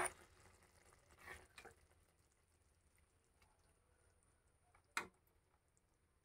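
Near silence: room tone, with a soft knock about a second in and one short sharp click about five seconds in.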